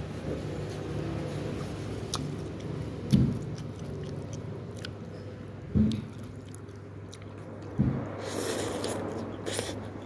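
A person eating rice noodles close to the microphone, chewing. Three short, low thumps are spread through, with scattered faint clicks and a brief hiss near the end.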